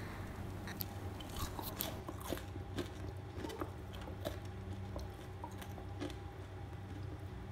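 Faint crunching of someone biting and chewing crumb-coated fried cauliflower popcorn, scattered crisp clicks over a steady low hum.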